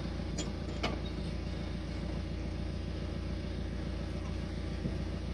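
Ice cream van's engine idling nearby: a steady low rumble with an even pulse. Two clicks in the first second come from the brake caliper being worked by hand.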